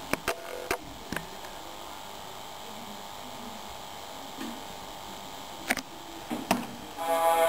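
A 1970 Tesla Dolly 3 transistor radio's small speaker playing a quiet stretch of a classical-music broadcast: a steady hiss with several sharp clicks, a few in the first second and two more near the end. Orchestral music starts just before the end.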